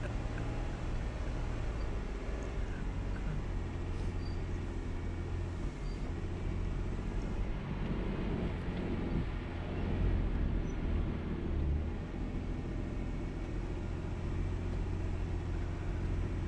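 Jeep engine running at low revs while crawling over rock, growing louder for a couple of seconds about ten seconds in.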